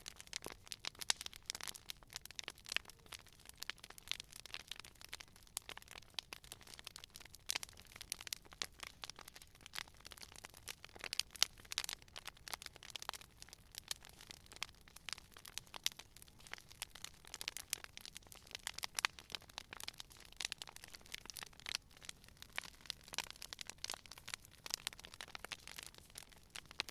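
Campfire crackling: a constant irregular run of sharp snaps and pops, with a few louder pops about a second in and around the middle.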